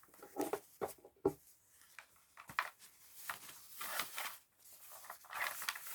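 Packaging being handled: a string of short, irregular rustles, scrapes and crinkles.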